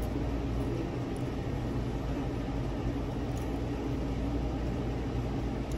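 Steady low hum and hiss of a quiet restaurant dining room, an even background drone with no distinct events.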